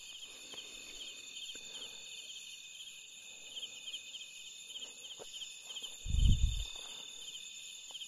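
Steady night chorus of insects, crickets chirping in fast, even pulses, with one brief low thud about six seconds in.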